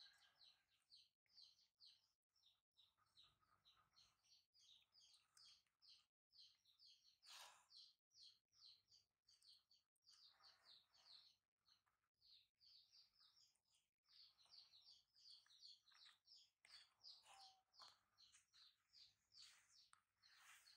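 Near silence with faint, rapid high chirping from small birds, several chirps a second throughout.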